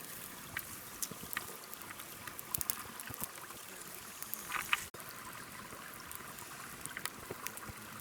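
Water trickling and splashing, with many small clicks and taps scattered through it and a brief break about five seconds in.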